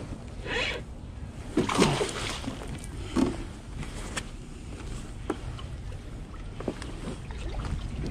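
A hooked tautog (blackfish) splashing as it is reeled up beside a kayak and lifted from the water, with water sloshing and a few sharp knocks and clicks. The loudest splash comes about two seconds in.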